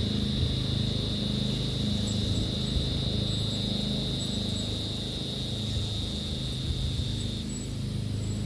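A steady high-pitched insect buzz that cuts off near the end, over a low steady hum.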